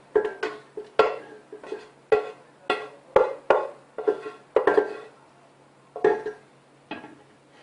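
Metal cookware clanking: a spoon knocking against metal pots as the cooked peppers are tipped and scraped out, about a dozen ringing clanks at irregular intervals that thin out after about five seconds.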